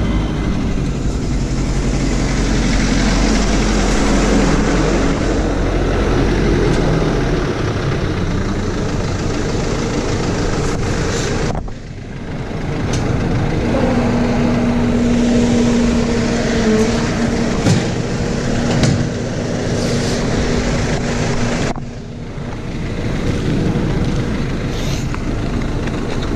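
Mercedes-Benz Sprinter 310 diesel engine idling steadily while it runs on a hydrogen carbon-cleaning treatment. The sound dips briefly twice.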